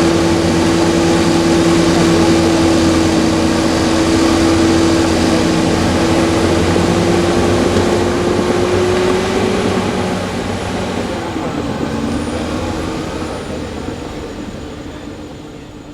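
Bulldozer's diesel engine running steadily with a strong drone, fading out over the last few seconds.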